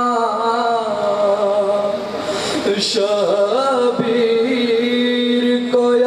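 A young man's solo voice chanting a salam, an Urdu devotional elegy, in long held, wavering notes, with a short break in the melody about two seconds in.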